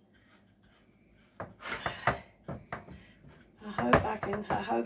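A metal measuring cup pressing graham-cracker crumbs into a baking dish: a few light knocks and scrapes, starting about a second and a half in.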